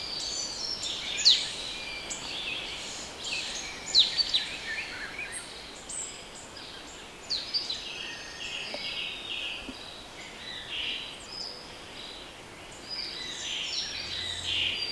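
Woodland birdsong: several birds singing and calling together, with many short, sharp high chirps and quick falling whistles.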